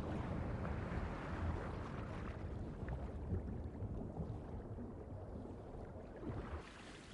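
Swamp water sloshing and washing in a low, muffled rumble, easing off toward the end.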